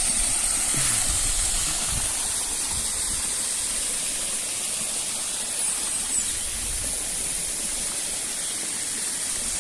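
Waterfall rushing steadily: an even, hissing roar of falling water with no break.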